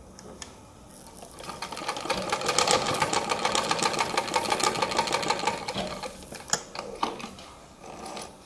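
Sewing machine running a fast, even stretch of stitches, stitching a folded half-inch hem along a cotton petticoat edge. It speeds up about a second in, then slows and stops, with a few clicks near the end.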